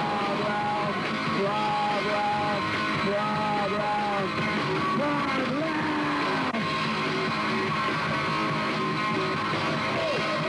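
Rock band playing: guitars with a singing voice carrying a melody over them, at a steady level.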